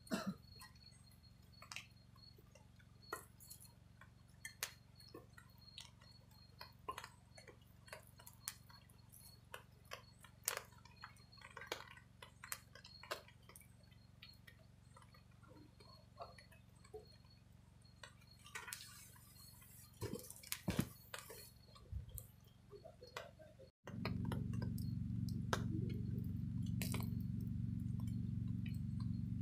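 Wood campfire crackling, with scattered sharp pops and snaps, while sticks are laid onto it by hand. About three-quarters of the way through, a louder steady low rumble comes in under the crackling.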